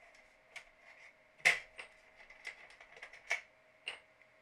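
Light metallic clicks and taps of a screwdriver and small Torx screws on the Xbox One's sheet-metal shield plate, about six in all, the loudest about a second and a half in.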